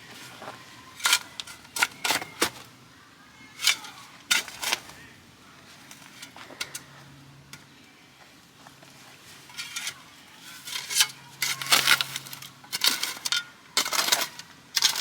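Shovel scraping and clinking into gravelly dirt in irregular strokes, backfilling around a newly set fence post, with a quieter stretch in the middle.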